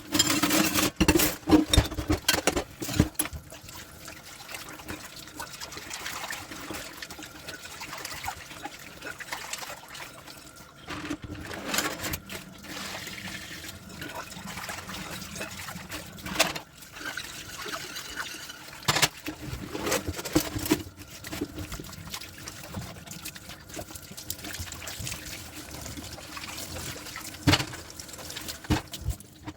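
Tap water running and trickling into a sink while dishes are rinsed, with occasional knocks and clinks of dishes; the first few seconds hold a busier clatter of dishes.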